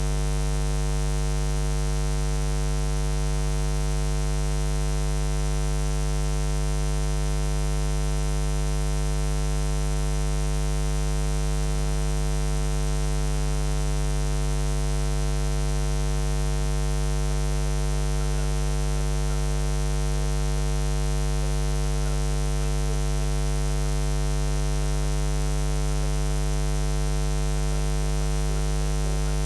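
Steady electrical mains hum: a low, unchanging buzz with a long stack of overtones over faint hiss.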